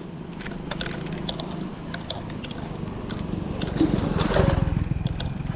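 Mountain bike rolling over a rough dirt track, with irregular clicks and crunches from stones under the tyres over a steady low rumble, louder about four seconds in.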